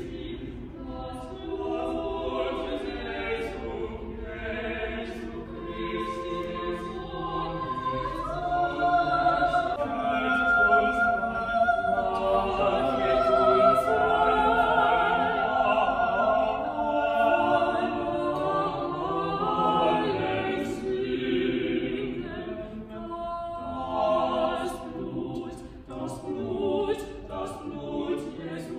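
Small mixed vocal ensemble of sopranos and men's voices singing a Baroque sacred piece in several parts, with strings accompanying. The sound swells to its loudest about halfway through, then softens, with brief breaks near the end.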